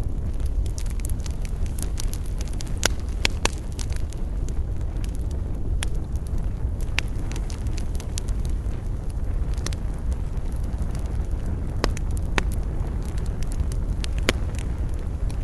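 Wood campfire crackling, with sharp snaps and pops at irregular moments over a steady low rumble.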